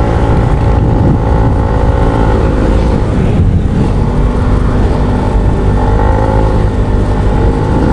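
Motorcycle engine running while riding at road speed, with heavy wind rumble on the microphone. The engine note fades about three seconds in and comes back a second or two later.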